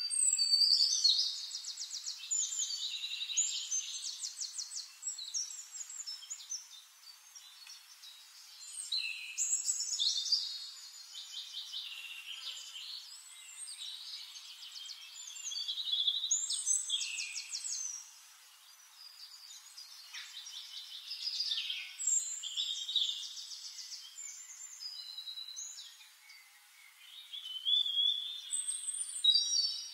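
Songbird singing: repeated phrases of high, quick trills and chirps, each a few seconds long, with short pauses between them.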